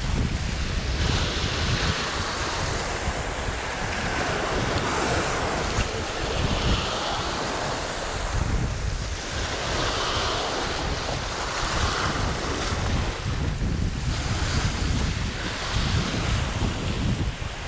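Sea waves breaking and washing over shoreline rocks, surging every couple of seconds, with wind rumbling on the microphone.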